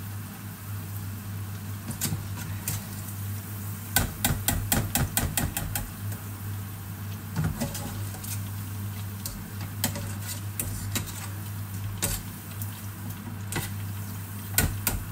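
Metal spoon clinking and tapping against a steel saucepan and a mesh strainer as fried chicken pieces are scooped out of the oil, with a quick run of taps about four seconds in and single clinks scattered after. A steady low hum sits underneath.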